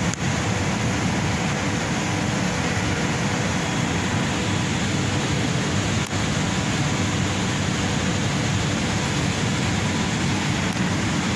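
Steady, loud background din of a large indoor mall play area: an even rushing noise with a faint steady hum in it.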